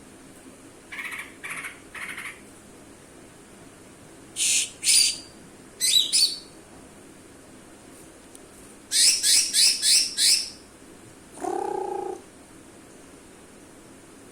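Cucak ijo (greater green leafbird) calling in separate short phrases: three soft notes, then loud sharp whistled calls in pairs, a quick run of five, and a lower, rougher note near the end.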